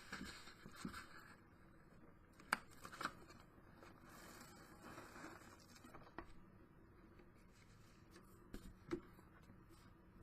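Quiet handling of paper: faint rustling and scraping as glued cardstock is slid into position on a craft cover, with a few light taps, twice about a third of the way in and again near the end.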